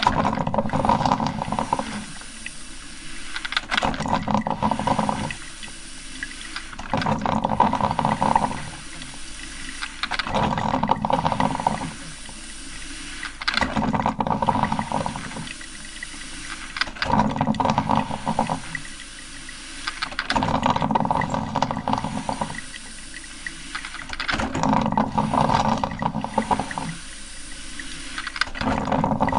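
Coffee maker brewing: water gurgling and sputtering in bursts about every three seconds, each burst bubbling and crackling for a second or two before it dies back.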